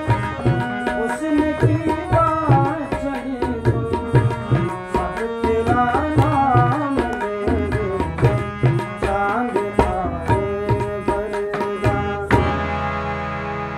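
Tabla and harmonium accompanying a man's singing, the tabla strokes dense and rhythmic under a bending vocal melody. About twelve seconds in the tabla stops sharply and a held harmonium chord sounds on alone, closing the song.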